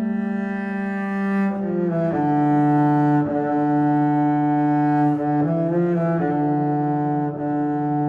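Background music: slow, sustained bowed-string notes, low and held, shifting pitch every second or two.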